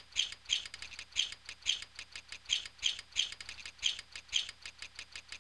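A steady series of short, high-pitched bird-like chirps, repeating roughly two to three times a second.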